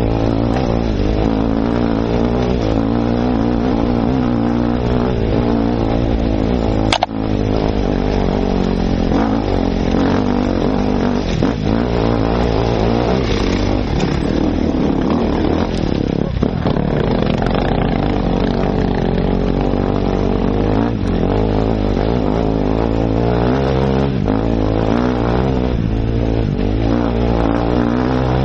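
Enduro motorcycle engine running under load close to a helmet-mounted microphone as it climbs a rocky dirt track, its revs wavering with the throttle. There is one sharp knock about seven seconds in.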